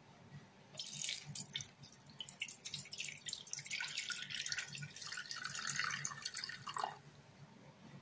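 A stream of water pouring into the stainless steel pot of an electric kettle, splashing onto a plastic egg rack. It starts about a second in and stops near the end.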